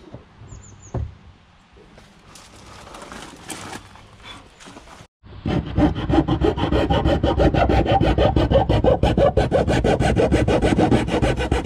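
Hand file rasping back and forth on the edge of a hole cut in a motorhome's side wall, cutting small notches. A few faint strokes come first, then after a brief break the filing turns loud and fast, with rapid even strokes.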